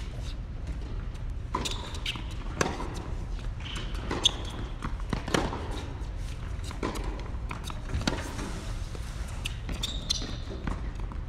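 Tennis rally in a large indoor court hall: sharp racket strikes and ball bounces every second or so, over a steady low hum.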